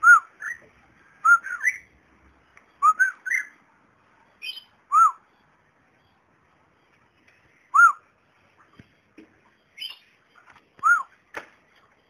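Cockatiel calling with short arched whistled notes, several in quick clusters at first, then single notes a few seconds apart.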